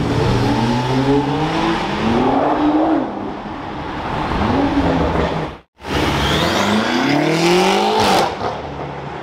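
Nissan GT-R's engine pulling hard as the car accelerates away, the pitch climbing and dropping back several times through upshifts. After a short break, a BMW M5 accelerates past with its engine note again rising through the gears.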